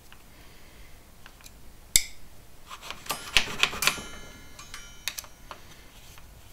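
Small metal clicks and clinks of a 2.5 mm Allen key seating in and turning the top bolts of a handlebar bar-extender clamp as they are snugged up: one sharp click about two seconds in, a cluster of clinks with a brief metallic ring a second later, then a few lighter ticks.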